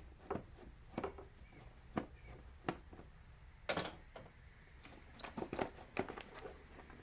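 Scattered light clicks and knocks, about one a second, with a closer run of them about five seconds in: a screwdriver on a screw and hands handling the plastic air filter box lid, working a screw that was not loosened enough.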